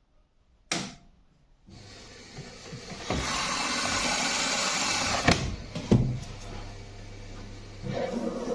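Electrolux EW1077F washing machine taking in water: a click, then water rushing in, building over a couple of seconds, with two knocks midway before the rush settles lower.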